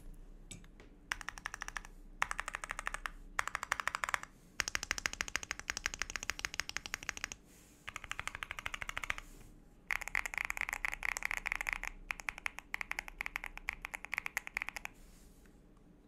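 Fast typing on an Akko ACR68 Pro acrylic-cased mechanical keyboard fitted with WS heavy tactile switches: rapid keystroke clatter in runs of a few seconds, broken by short pauses.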